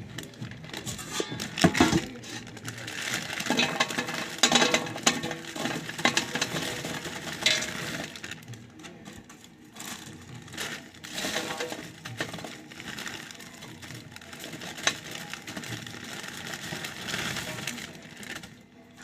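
A packet of wrapped candies being handled and opened: plastic wrappers crinkling, with many small clicks and taps as the candies knock together.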